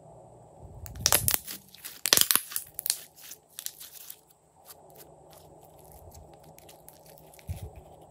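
Glossy slime squeezed and squished in the hands, giving a dense run of sharp crackling pops from about a second in for roughly two seconds, then a few softer clicks.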